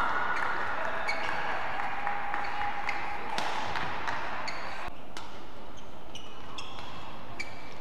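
Crowd cheering and clapping after a point in a badminton match, dying away about five seconds in. Then a rally with sharp shuttlecock hits and short squeaks of shoes on the court.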